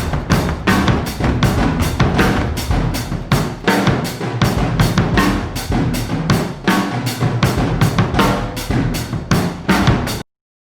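Background music with a fast, driving drum beat that cuts off suddenly near the end.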